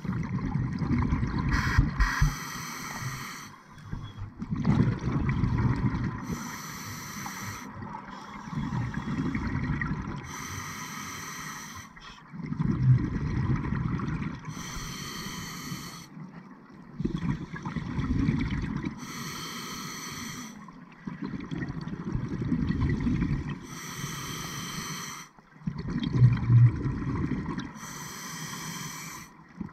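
Scuba diver breathing through a regulator underwater, about seven breaths: each brief high hiss of an inhale is followed by a longer low, gurgling rumble of exhaled bubbles, one breath every four seconds or so.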